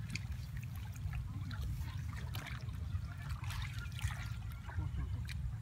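Shallow muddy water trickling and splashing as people wade and grope through it by hand, with scattered small splashes over a steady low rumble.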